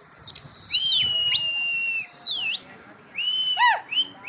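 People whistling loudly to a flock of flying domestic pigeons. There are long whistles, two of them overlapping, each held steady and sliding down in pitch at its end. After a brief pause comes a quick string of short whistled notes.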